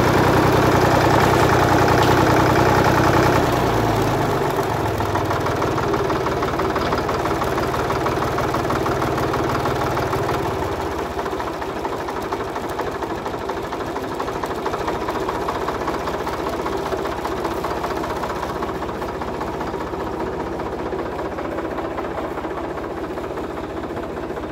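Farm tractor engine running steadily, dropping in speed about four seconds in and again about eleven seconds in, then settling to a quieter idle.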